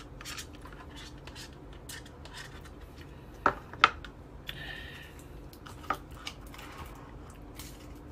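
A spoon clicking and scraping against a plastic yogurt cup, with two sharp knocks near the middle as the cup is set down on the desk, and another knock about six seconds in.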